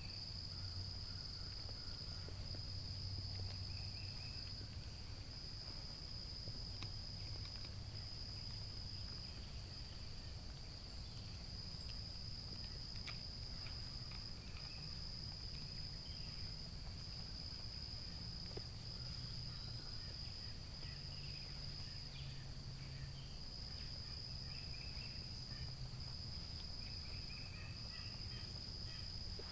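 A steady, high-pitched insect chorus that drops out briefly every second or two, over a low steady hum, with a few faint chirps scattered through.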